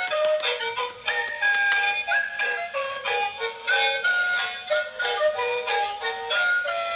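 Electronic dancing toy's small built-in speaker playing a tinny synthesized tune, a quick run of bright notes with no bass.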